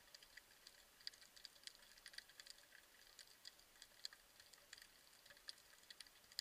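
Faint underwater ambience: scattered sharp clicks and crackles, irregular and several a second, over a faint hiss.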